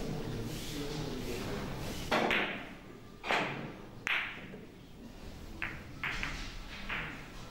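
A three-cushion billiards shot: the cue strikes the cue ball about two seconds in, then the carom balls give a series of sharp clicks against each other and the cushions, three loud ones and then a few softer ones.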